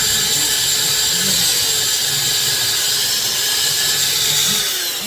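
Power tool motor running steadily with a loud, high-pitched whir. Near the end its pitch drops as it is switched off and spins down.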